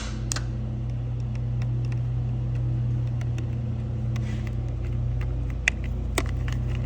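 A steady low mechanical hum, like a motor or engine running, with scattered sharp clicks; the loudest click comes near the end.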